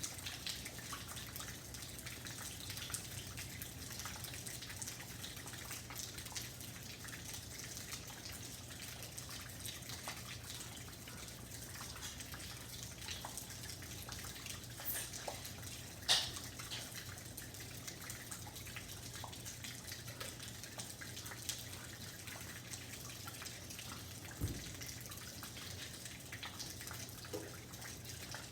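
Rain falling steadily, with many small drops ticking and dripping throughout. A sharper drop or tap stands out about sixteen seconds in, and a dull thump comes near the end.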